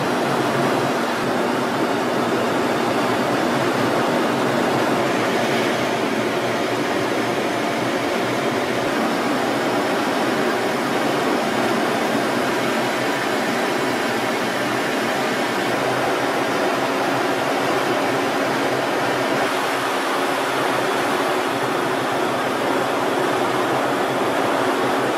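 Steady rushing roar of engine and airflow noise heard from inside a jet aircraft in flight, with a low, even hum underneath.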